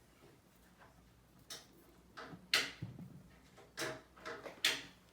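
Work on a stripped-down engine: a string of short, irregular bursts and knocks, the loudest about two and a half seconds in and near the end.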